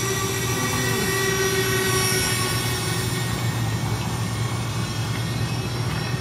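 Estes 747 remote-controlled model airliner flying overhead, its brushed electric motors giving a steady high-pitched whine over a constant low rumble.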